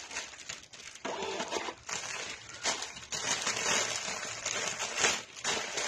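Clear plastic garment bags crinkling and rustling as they are handled and pulled open, in irregular bursts.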